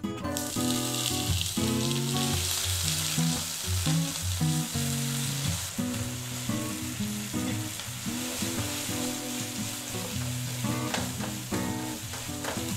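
Canned corn kernels sizzling as they fry in hot melted butter in a frying pan, the sizzle starting as the corn goes in. A spatula stirs them near the end.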